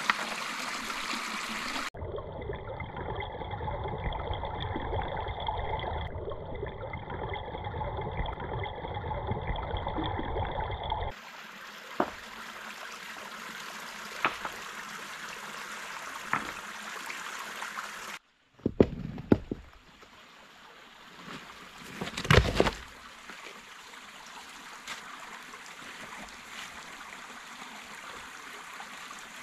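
Shallow stream running and trickling over stones, its sound changing abruptly a few times. A few sharp knocks of rocks being set in the streambed, and two heavier thuds about two-thirds of the way through.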